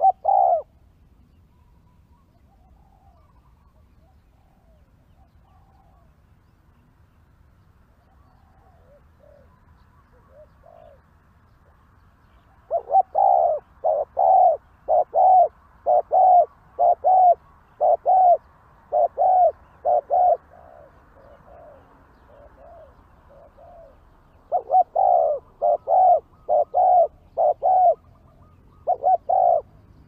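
Spotted dove cooing. One coo comes right at the start, and faint bird calls follow. Then comes a long run of loud, evenly spaced coos about two a second, and later a shorter run with a last pair near the end.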